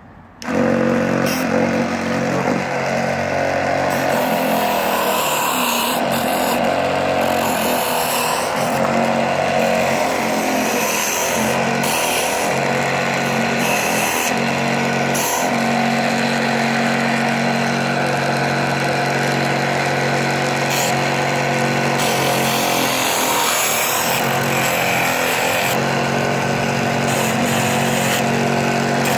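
Small electric motor of a mini 4-in-1 table saw and sander switching on about half a second in and running steadily while a small wooden square is sanded on it.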